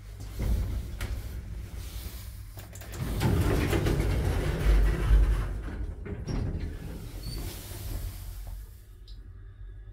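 Lift doors being worked: rumbling and clatter with a heavy low thud about five seconds in, then lighter rattling that fades near the end.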